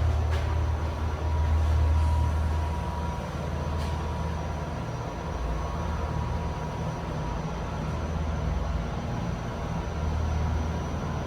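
KONE passenger elevator travelling up its shaft: a steady low hum with a faint high whine above it, and a small click about four seconds in.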